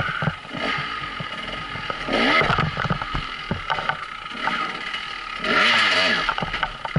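Husqvarna enduro dirt bike's engine revving in surges as it climbs a rough trail, its pitch rising and falling, loudest about two seconds in and again near the end. Short clatter and knocks from the bike working over the ground.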